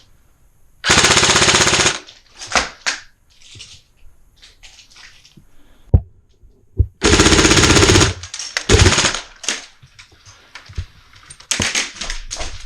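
Airsoft rifle firing two full-auto bursts of about a second each, the second about six seconds after the first, with a few shorter shots and knocks between and after them.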